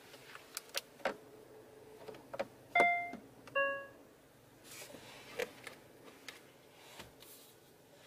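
Clicks from the Genesis GV80's rotary gear-shift dial being handled, then two short electronic chimes from the car, the second lower in pitch, followed by soft rubbing and sliding noises from the console trim.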